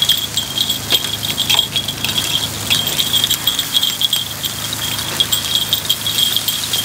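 Rapid metallic clicking and scraping of takoyaki picks against a takoyaki pan as the balls are turned, a dense, continuous ticking.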